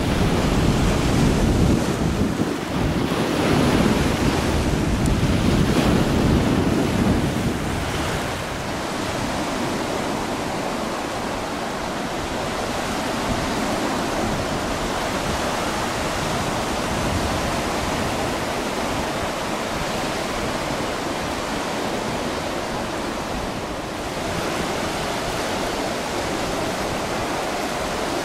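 Baltic Sea surf washing onto a wide sandy beach, a steady rushing noise. Wind buffets the microphone with a low rumble for the first seven or eight seconds, then dies down, leaving the surf alone.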